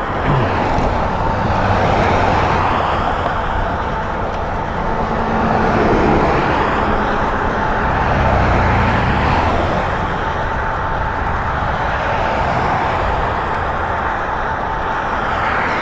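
Road and traffic noise with wind rushing over the microphone while riding an e-bike, with a steady whine underneath.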